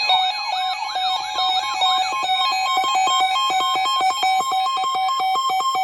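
Electronic emergency-alert tones. For about the first two seconds, a fast siren-like wail rises and falls over a steady two-note tone. Then comes a quick stuttering run of beeps jumping between pitches, which stops abruptly at the end.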